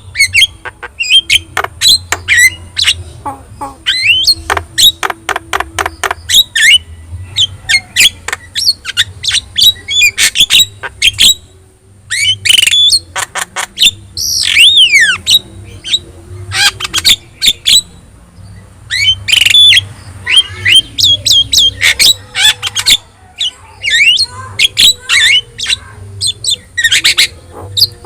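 Javan myna (jalak kebo) singing energetically: a rapid, loud run of harsh squawks, clicks and whistled notes, some sliding down in pitch, broken by short pauses.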